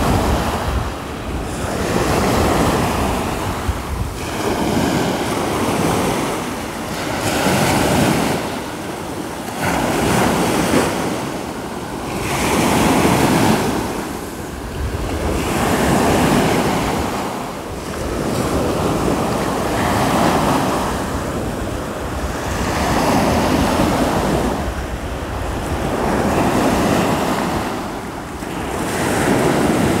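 Surf of the Sea of Azov breaking and washing up a sand-and-shell beach, the rush of water swelling and falling back about every three seconds. Some wind buffets the microphone.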